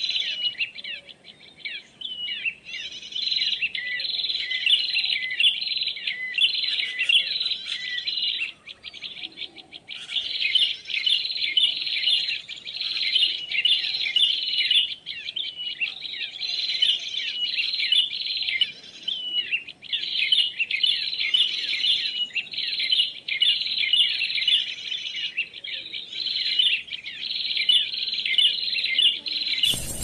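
Bird-lure recording of many small birds chirping busily ("suara burung ribut"), played from an MP3 player to draw birds to lime sticks. The chirping stops for about a second and a half a third of the way in, then starts again.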